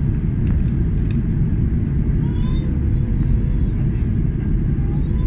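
Airbus A330 cabin noise in flight: a steady low rumble of engines and airflow heard from inside the cabin during the descent before landing.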